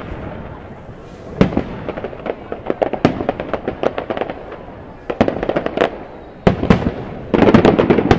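Aerial fireworks shells bursting overhead: single sharp bangs mixed with quick runs of popping, which grow dense and continuous near the end.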